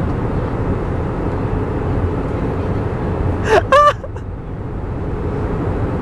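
Steady roar of an airliner cabin in flight: engine and air noise. About three and a half seconds in, a brief high-pitched sound with a falling then held pitch cuts through it.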